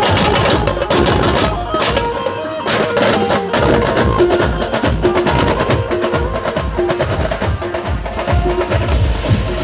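A procession band playing loud music: drums beat steadily under a melody of held notes. The drums drop out briefly about two seconds in.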